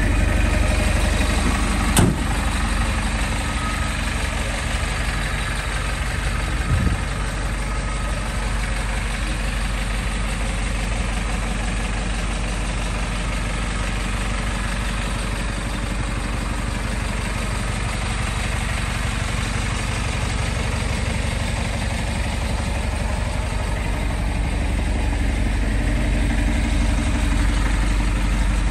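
DAF LF truck's diesel engine idling steadily. There is a sharp knock about two seconds in and a smaller thump near seven seconds.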